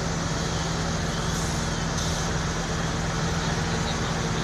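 Heavy truck engine running steadily: a constant low drone under an even wash of noise.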